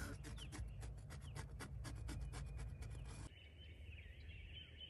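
Pencil sketching on a stretched canvas: a quick run of short scratching strokes, about six a second, that stops abruptly about three seconds in. Faint bird calls sound in the background.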